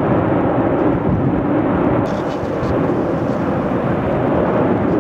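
Fogo volcano's lava vent degassing as lava gushes out, a loud, steady rushing noise with no break.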